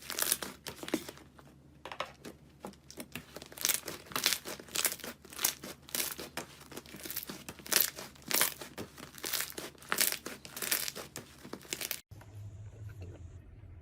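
Slime being squeezed and pressed by hand, giving dense, irregular crackling and popping. About twelve seconds in it cuts off abruptly to a quiet low hum.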